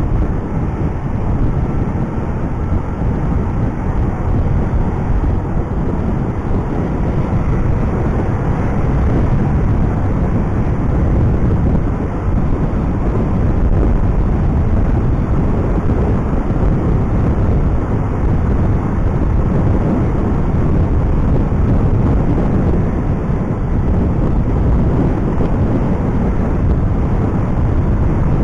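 Motorcycle on the move: a steady rumble of wind over the microphone, mixed with engine and road noise.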